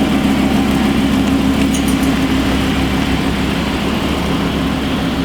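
Lamborghini supercar engine idling steadily at a constant pitch.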